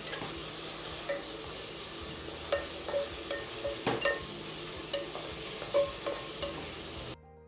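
Chopped onion, tomato, ginger-garlic paste and green chillies sizzling in hot oil in a coated kadai, stirred with a wooden spatula that taps against the pan again and again. The sizzle cuts off suddenly near the end.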